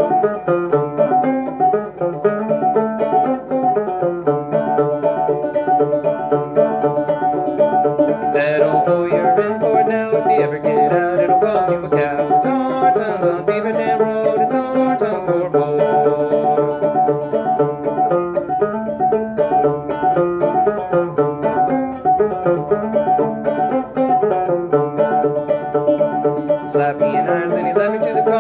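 A c.1891 A.C. Fairbanks "Fairbanks and Cole" banjo played clawhammer style: a steady, rhythmic run of plucked notes and brushed strums of an old-time tune.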